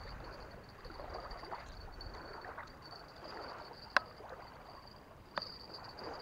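Water lapping and splashing in the shallows, with a sharp click about four seconds in and a smaller one a second and a half later. A faint steady high whine runs underneath.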